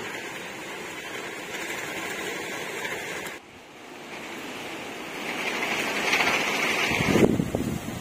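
Storm rain and wind, a steady rushing hiss that drops away suddenly about three and a half seconds in and then builds back up. From about seven seconds, wind buffets the microphone with a low rumble.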